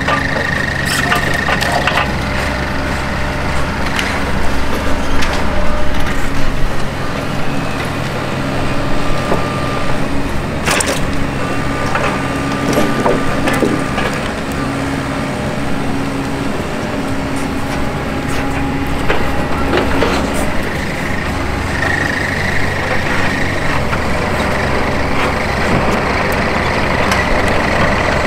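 Doosan crawler excavators' diesel engines running under load while their demolition grapples work wreckage, with knocks, cracks and crunches of wood and debris throughout, loudest about four to seven seconds in. A high steady whine sounds at the start and again near the end.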